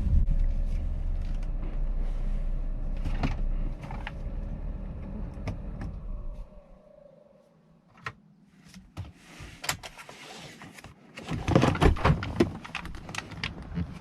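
Low rumble of the 2011 Jeep Grand Cherokee V6 running dies away about halfway through, leaving scattered sharp clicks and a short burst of clatter near the end.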